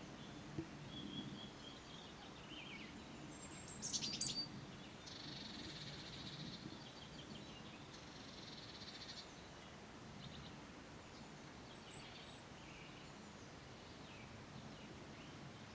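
Small woodland songbirds calling and singing faintly: a loud cluster of sharp chirps about four seconds in, then a high trilling song for several seconds, with scattered fainter calls after. A steady low background rumble runs underneath.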